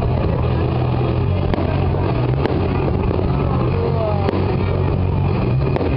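Fireworks display: about four sharp firework cracks spread through, over a steady, loud, rumbling din.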